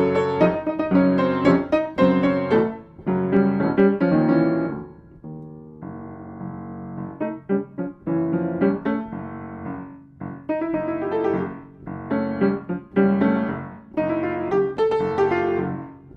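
Piano music: chords and phrases of struck notes. It softens into a mellower passage a few seconds in, then picks up again about ten seconds in.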